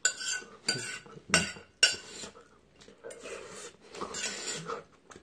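Metal chopsticks clinking and scraping against a metal bowl while eating ramen: four sharp clinks in the first two seconds, then softer scraping.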